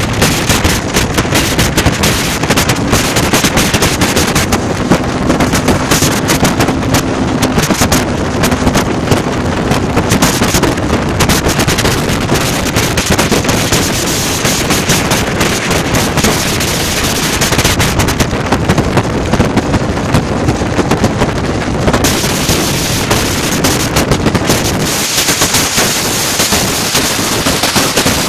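Harley-Davidson V-twin motorcycles running at cruising speed alongside, with loud wind buffeting on the microphone that makes a rapid rattling pulse.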